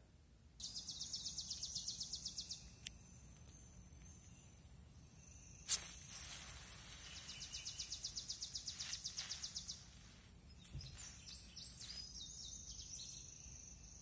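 A keychain pepper spray discharged in one stream: a sharp pop about six seconds in, then a hiss lasting a few seconds. Insects trill in fast, even pulses on and off.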